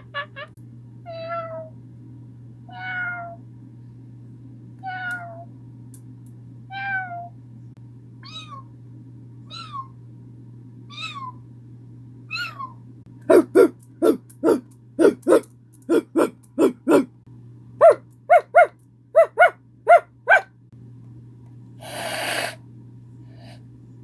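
A person making meowing noises in imitation of a cat. About a dozen drawn-out meows come roughly every second and a half, then two quick runs of short, clipped meows, and a breathy hiss-like noise near the end.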